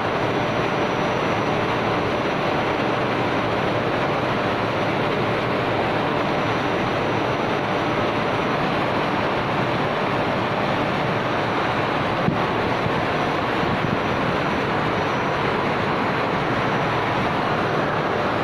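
Vertical multistage stainless-steel high-pressure pump of a reverse-osmosis water plant running, a loud, steady noise of motor and pump. A single short click about twelve seconds in.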